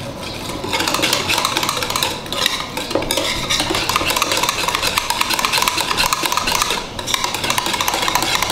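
Wire balloon whisk beating cream and powdered sugar in a flat dish: a fast run of wet scraping strokes with the wires clicking against the dish, broken by two brief pauses.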